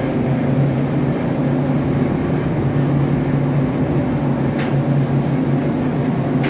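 Steady, loud drone of ship's engine-room machinery, with a constant low hum, and a light click about four and a half seconds in.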